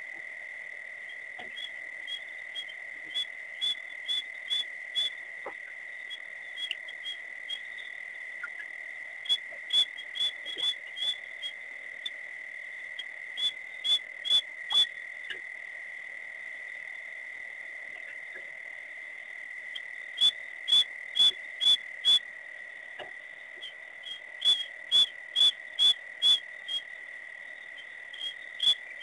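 Night chorus of frogs at a waterhole: a steady high-pitched ringing trill, with loud short clicking calls in runs of three to six, about two a second, coming several times.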